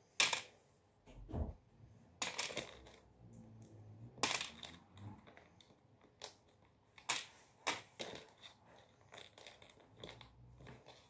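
Cardboard jigsaw puzzle pieces being sorted by hand: irregular clicks and rustles as pieces are rummaged through in the box, picked up and set down.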